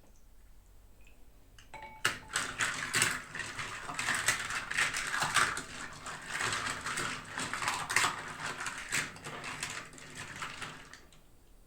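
Toy packaging being handled and unwrapped: rustling and crinkling with many small clicks and taps. It starts suddenly about two seconds in and stops near the end.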